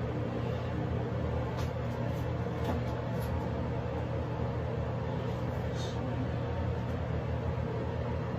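A steady low mechanical hum runs throughout, with a few faint rustles and ticks in the first half as a satin durag is untied and pulled off the head.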